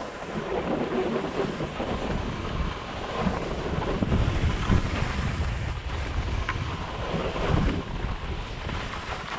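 Wind noise on a GoPro's microphone while skiing downhill: a low rumble that rises and falls, over a steady hiss of skis sliding on packed snow.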